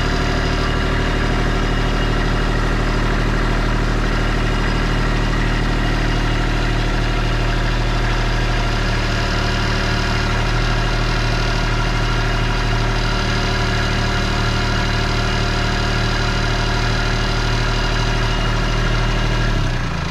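Kubota LX2610 compact tractor's three-cylinder diesel engine running steadily while the front loader is worked. The engine note shifts just before the end.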